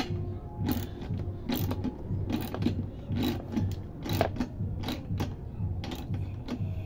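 Hand socket ratchet clicking in short strokes, about one a second, as it tightens the axle nut of a compressor's wheel.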